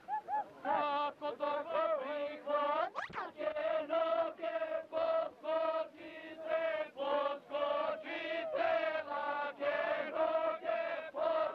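A voice chanting short repeated syllables on one steady pitch, about two or three a second, with a quick upward swoop into a high squeal about three seconds in.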